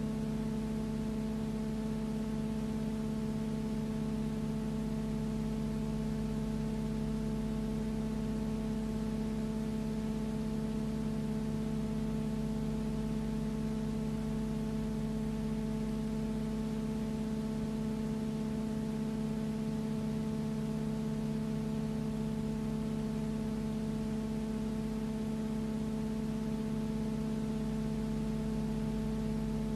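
Steady hum made of several constant tones over even hiss, with no change in pitch or level: background noise of the old cinefilm transfer, not the sound of the aircraft.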